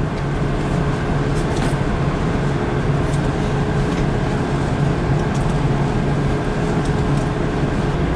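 Steady, loud ventilation drone with a low hum and a fainter higher tone, with no gunshots.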